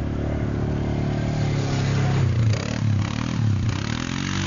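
ATV (quad bike) engine running under load as it climbs a sand slope. It revs up and down several times from about halfway through.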